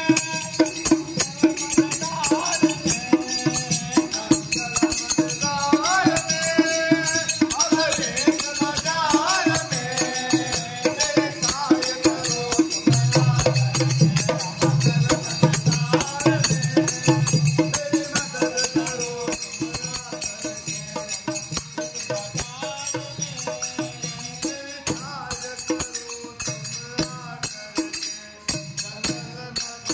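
Two men singing a devotional folk song, with a pair of small brass hand cymbals (manjira) struck in a steady, even rhythm beneath the voices.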